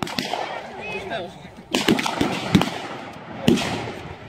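Blank gunfire from re-enactors' rifles in a mock battle: irregular single cracks, each ringing out with an echo, with several in quick succession about two seconds in and one more near the end.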